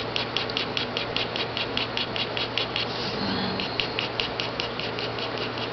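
Ink pen scratching across paper in quick back-and-forth hatching strokes, about seven a second, with a brief pause just past halfway. This is the sound of shading a drawing with hatched lines.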